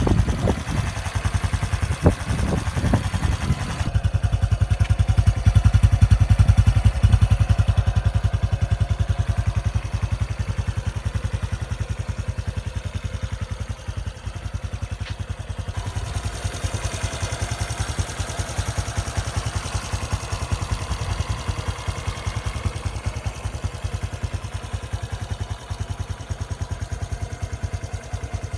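Honda XRM125 Fi's single-cylinder four-stroke engine running steadily at around 2,000 rpm, its even exhaust pulses deep and regular. It swells a little louder about five seconds in, then settles back.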